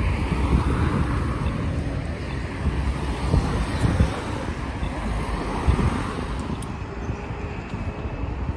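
Wind buffeting the microphone: a heavy, uneven low rumble that surges and eases.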